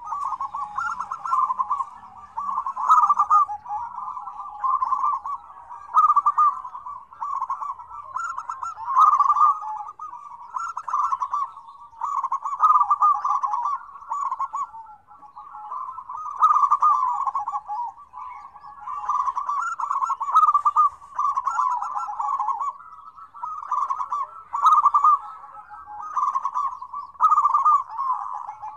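Several zebra doves (perkutut) cooing at once in overlapping staccato phrases, a dense, unbroken chorus, with faint high chirps above it.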